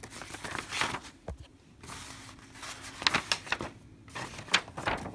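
Paper instruction sheets and plastic-bagged kit contents rustling and crinkling as they are handled, in irregular bursts with a few sharper crackles.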